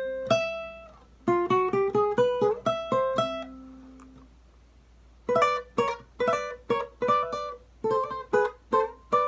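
Acoustic guitar played one note at a time: a plucked note, then a quick run of single notes, one note left ringing for a moment, then a second quick run.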